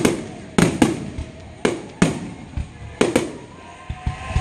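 Fireworks display: about six sharp bangs of shells bursting in the sky, irregularly spaced, two of them close together near the middle, each followed by a short echoing tail.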